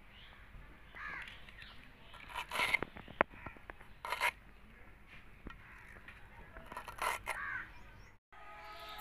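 Kharkol (arum) leaf stalks being chopped on a boti blade: a few sharp, spaced-out cuts. Just past 8 s the sound drops out briefly and background music begins.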